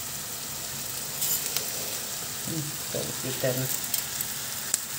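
Chopped onions sizzling steadily in oil in a frying pan as they soften. About a second in there is a short patter as raw rice is poured in over them.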